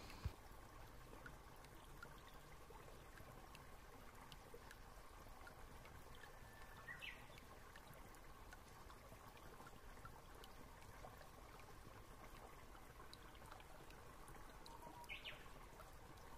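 Near silence: faint room hiss with a thin steady hum, a few faint ticks and two brief faint chirps.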